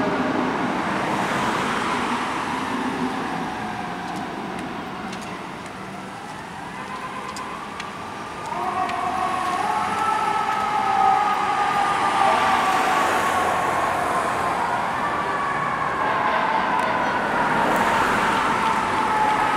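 Emergency sirens of a fire truck and an ambulance, wailing in slow rising and falling glides over traffic noise. They fade down partway through, then come back louder about eight seconds in.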